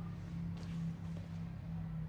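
Steady low background hum, with a faint click about half a second in.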